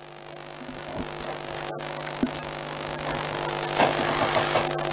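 Steady electrical hum with a hiss that grows louder, on an open telephone line as the next caller's call is put through.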